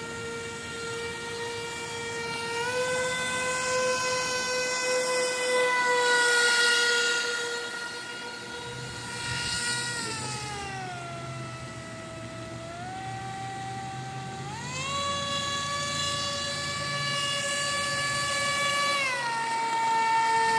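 Aquacraft Cajun Commander radio-controlled airboat's gas engine and air propeller running with a steady high whine whose pitch follows the throttle. It dips about halfway through, climbs higher around three-quarters of the way in, and eases back near the end.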